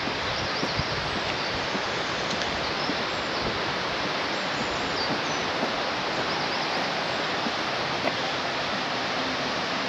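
Steady rush of a stream or small river's running water, with small birds chirping faintly here and there above it.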